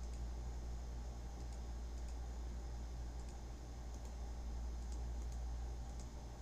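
Faint, irregular clicks of a computer mouse and keyboard, one every second or so, over a steady low hum.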